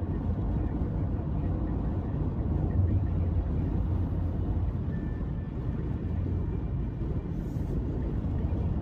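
A motor running with a steady low rumble.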